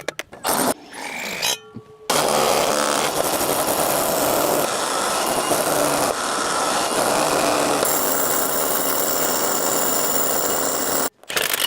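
Hammer drill boring into a concrete foundation: a few brief knocks, then a loud, steady drilling noise from about two seconds in that cuts off abruptly shortly before the end.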